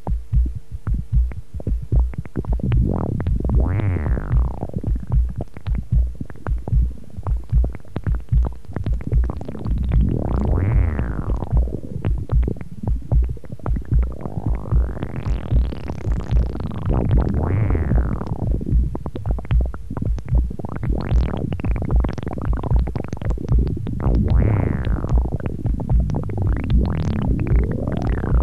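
Electronic music from three linked Transaudio analogue synthesizers: a rapid low pulsing beat under long swept tones that rise in pitch and fall again, several times over.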